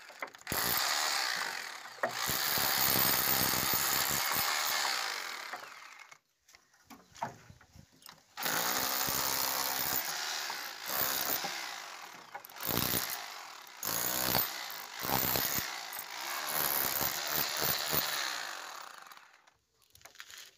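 Rotary hammer drill with a flat chisel bit, hammering a wiring channel out of plaster and brick. It runs in long stretches, stops for about two seconds around a third of the way through, then starts again and runs in shorter bursts near the end.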